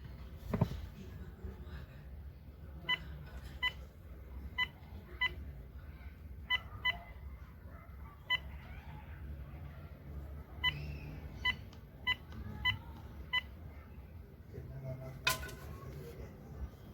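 Cordless phone handset keypad beeping as buttons are pressed: about a dozen short identical beeps at uneven intervals, like a number being keyed in or menus being stepped through. A single sharp click near the end.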